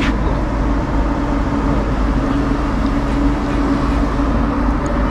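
Wind rumbling on the microphone, with a steady hum underneath.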